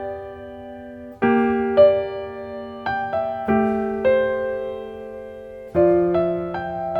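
Slow, calm piano music: soft chords and single notes struck every second or so, each ringing out and fading.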